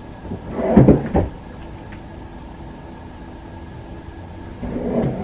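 Two short clusters of knocks and rustling, about a second in and again near the end, like a door or cupboard being handled, over a faint steady hum.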